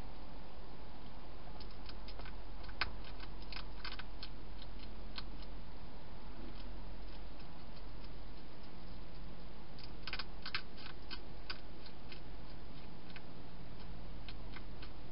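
European hedgehog crunching dry food: bursts of short sharp clicks, one cluster about two to four seconds in and another around ten seconds in, with a few single clicks between, over a steady hum and hiss.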